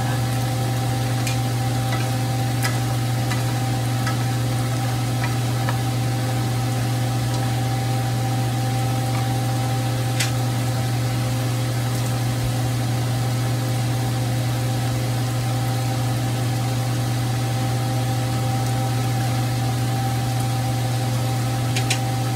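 Shrimp sizzling in a hot frying pan, with a few scattered pops and crackles, over a steady low hum from a kitchen appliance.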